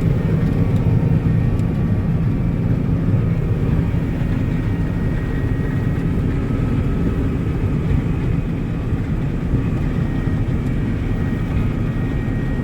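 A large engine running steadily, a low drone with a faint high whine held over it.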